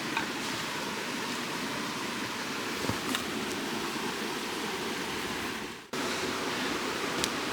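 A steady rushing noise with a few faint clicks, cutting out briefly about six seconds in.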